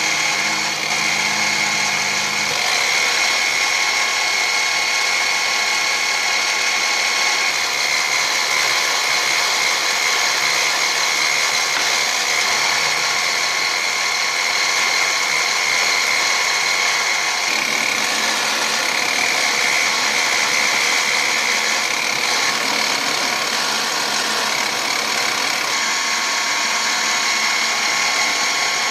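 Benchtop mini mill running with a stub drill boring a series of holes into a steel block. The spindle motor and gearing give a steady whine over the noise of the cutting.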